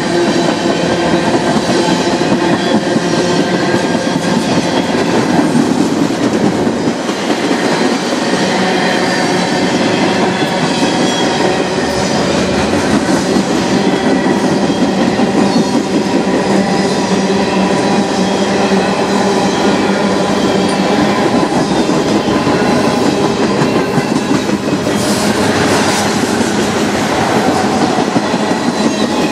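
Freight train's tank cars and covered hoppers rolling past close by: a steady loud rumble and clatter of steel wheels over the rails, with a thin steady wheel squeal running through it.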